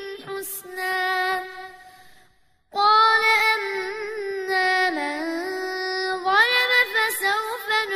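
A boy's voice reciting the Quran in the melodic murottal style, holding long notes with ornamented rises and falls in pitch. The recitation breaks off for a short silence about two seconds in, then starts a new phrase.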